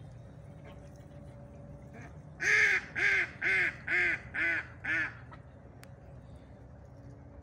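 A duck quacking six times in a row, about two quacks a second, each a little quieter than the last.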